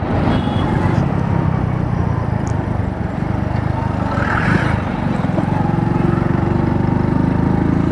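A 100 cc single-cylinder motorcycle engine running steadily while riding, with a broad rush of wind and road noise over it.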